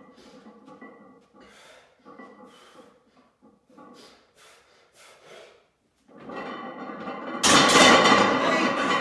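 A weightlifter's short, sharp breaths, several in a row, while he holds a loaded barbell between reps of a heavy rack pull. About seven seconds in, a loud, sudden burst of noise starts as the next rep is pulled and lasts to the end.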